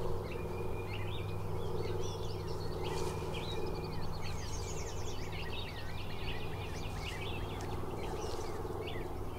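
Several songbirds chirping and trilling in quick, overlapping calls, over a steady low hum.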